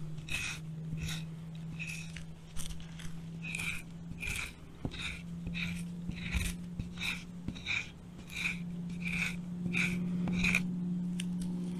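A knife spine scraping repeatedly down cedar bark, shredding it into fibrous tinder, in short rasping strokes about two a second. A steady low hum runs underneath.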